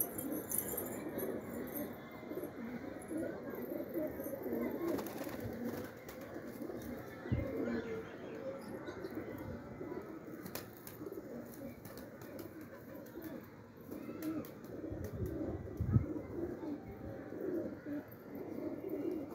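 A flock of domestic pigeons cooing, many low overlapping coos all through. A few short thumps break in, the loudest near the end.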